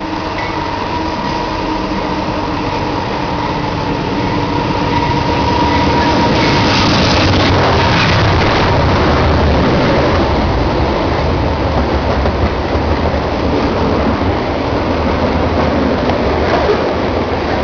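CN diesel freight locomotive approaching and passing directly beneath, its engine steady and loudest as it goes under. It is followed by the steady rumble of loaded open-top steel freight cars rolling by on the rails.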